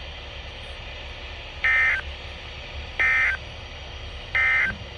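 NOAA Weather Radio SAME end-of-message code: three short bursts of shrill digital data tones, about 1.3 seconds apart, over steady radio hiss and hum. The bursts mark the end of the warning broadcast.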